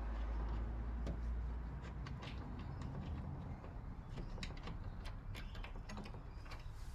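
Faint scattered light clicks and taps of hand tools and parts being handled, over a low rumble that is strongest in the first couple of seconds.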